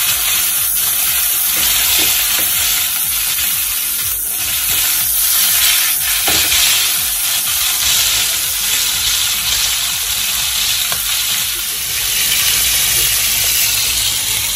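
Beef steaks frying in hot oil in a nonstick pan, sizzling steadily, with a couple of short clicks about four and six seconds in.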